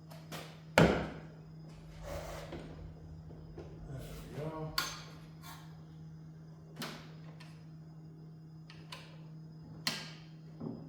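Scattered knocks and clunks of wood and tools being handled at a workbench, the loudest about a second in, over a steady low hum.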